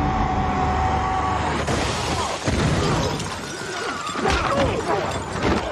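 Action-film fight sound effects: several hard crashes and impacts, some with a shattering quality, following a held steady tone in the first second and a half.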